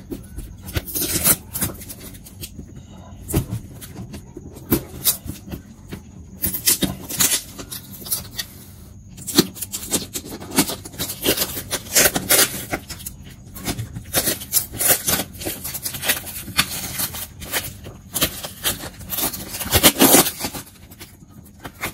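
Plastic-wrapped parcel sealed with packing tape being handled and cut open with scissors: irregular crackling and crinkling of the plastic and tape, with snips and scraping.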